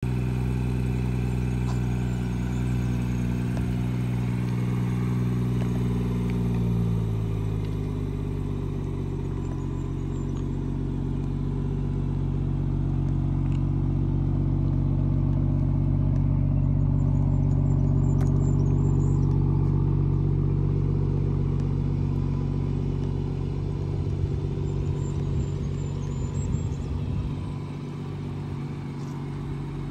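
BMW 440i's turbocharged straight-six idling steadily, its idle speed dropping to a lower, even pitch about seven seconds in.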